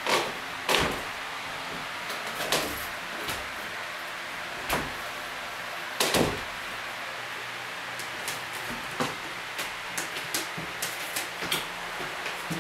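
Knocks and thuds of a climber's hands and shoes striking bolt-on holds and the plywood of a bouldering wall. There are a few louder ones in the first six seconds, then a run of lighter taps.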